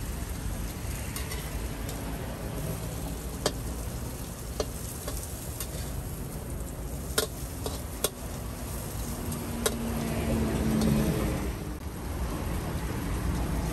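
Seafood pad kra pow stir-frying in a wok: a steady sizzle, with several sharp clicks of the spatula striking the pan as the food is tossed.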